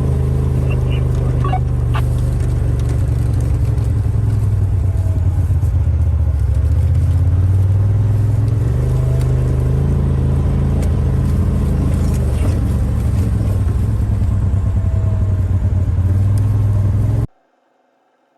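Polaris RZR side-by-side's engine running steadily under way, with a few sharp clicks and knocks in the first couple of seconds. The sound cuts off abruptly about a second before the end.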